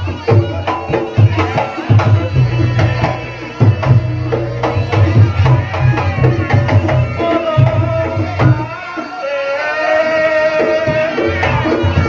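Reog Ponorogo gamelan music: hand drums beat fast and dense under a high melody line, which holds long notes in the second half.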